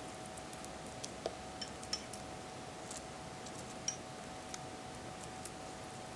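Scattered faint small metallic clicks and clinks from a Skagen 107SGGD gold-tone stainless steel mesh watch bracelet and its clasp being handled on the wrist, a few sharper ones about a second, two seconds and four seconds in, over a steady faint hum.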